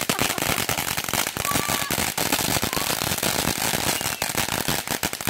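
Tie Dye ground fountain firework spraying sparks: a steady hiss with dense, rapid crackling.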